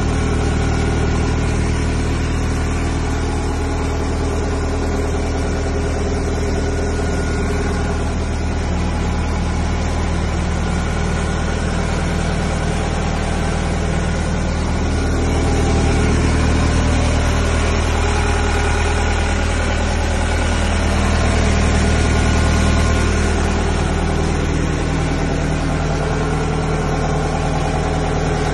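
Kubota DC95 combine harvester's diesel engine running steadily, heard from the operator's seat. Its note swells a little twice in the middle and shifts slightly after that.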